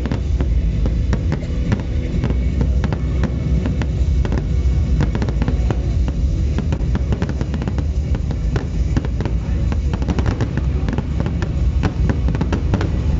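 Fireworks display: a rapid barrage of aerial shells bursting in quick succession, dense bangs and crackles over a continuous low rumble. The bursts come thicker and closer together in the second half.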